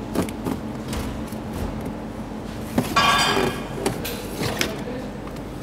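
VW Golf IV's plastic windscreen cowl panel being levered off its clips with a plastic trim tool: scattered clicks and knocks from the clips and panel, and about three seconds in a loud half-second squeak of plastic on plastic.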